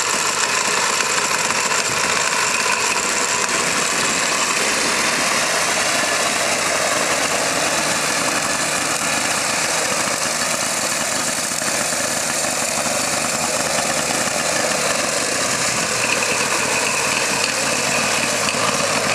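Homemade mini tractor's engine running steadily as the tractor is driven across grass.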